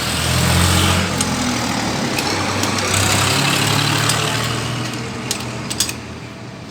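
Suzuki Gixxer 150's single-cylinder engine running. Its low note swells about half a second in and again around three to four seconds, and a few sharp clicks come near the end.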